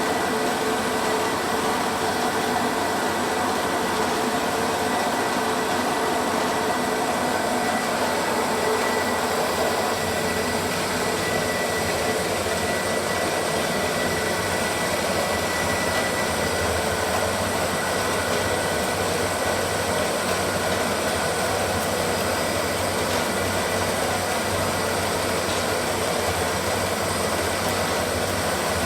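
ТчПА-6 semi-automatic frame-saw sharpening machine running steadily, its motor and grinding wheel giving a steady whine.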